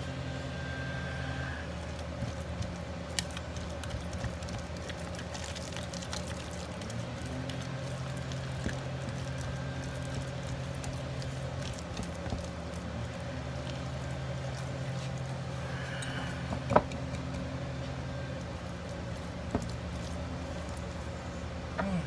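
Bare hands squishing and kneading thick, wet homemade texture paste in a plastic cup, over a steady low mechanical hum. A sharp tap about three-quarters of the way through.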